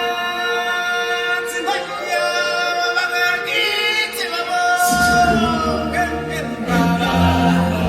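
A group of singers performing a held, chant-like vocal line live in a show theatre, with low musical accompaniment coming in about five seconds in.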